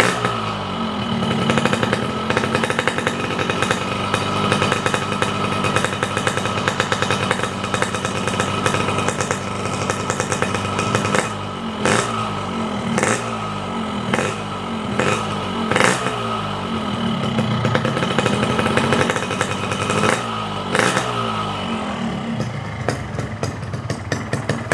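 Cold two-stroke Yamaha motorcycle engine revved repeatedly on the stand: its pitch rises and falls with each twist of the throttle, between spells at idle, and several sharp cracks come among the revs. It settles back to idle near the end.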